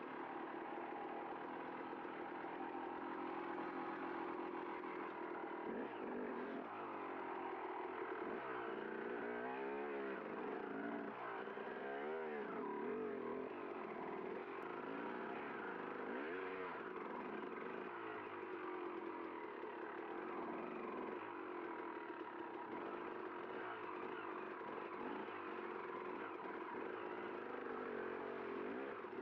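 Enduro dirt bike engine running under load as the bike is ridden up a creek bed, its revs rising and falling again and again.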